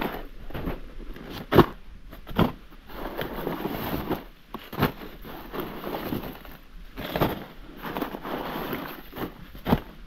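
Dry maize plants and husks rustling as cobs are picked by hand, with a sharp snap every couple of seconds as ears are broken off the stalks.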